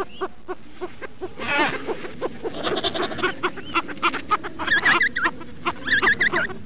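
African penguins calling: a rapid string of short calls, with higher warbling notes about five and six seconds in.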